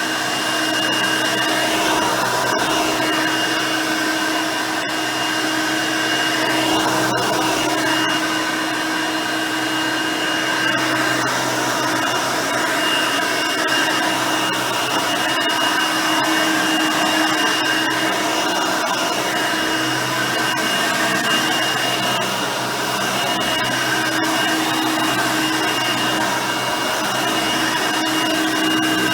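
Hoover Elite High Performance upright vacuum cleaner running, its 5-amp motor and 9-blade fan giving a steady whine that shifts slightly in pitch now and then.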